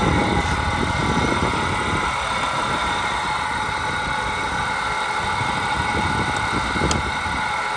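The donor car's engine idling steadily, with a steady high whine over it from its noisy pulley and power steering pump.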